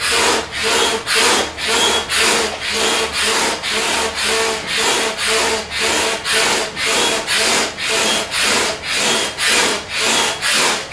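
Stansport double-action hand pump inflating a float tube, with a rhythmic whoosh of air at about two strokes a second, since the pump pushes air on both the pull-up and the push-down.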